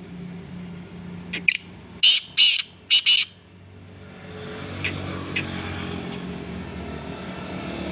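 Caged black francolin calling: a short series of five or six loud notes between about one and a half and three seconds in. After that a vehicle engine hum rises in the background.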